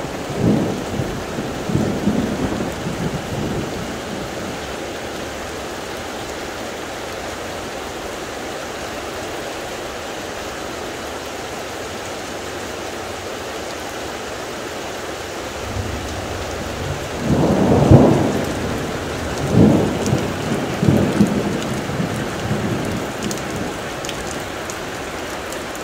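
Steady rain falling, with thunder: a rumble fading out over the first few seconds, then a loud thunderclap about eighteen seconds in that rolls on into further rumbles for several seconds.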